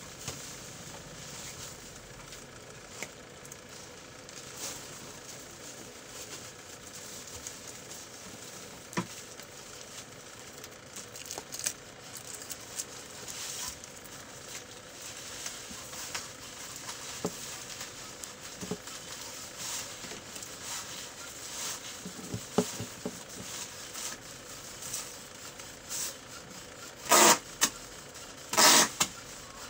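Hands handling loose wires, alligator clips and a plastic photo control on a wooden table: scattered small clicks and rustles over a faint steady hum. Near the end come a few loud, short rubbing noises as a hand grips the plastic photocell housing.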